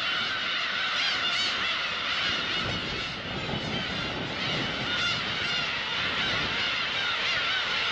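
Many black-tailed gulls calling at once, a dense chorus of overlapping cat-like mewing calls with no break.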